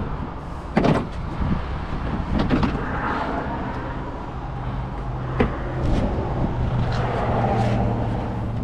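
A few sharp knocks and clicks of car body parts being handled, the loudest about a second in, over a steady low hum.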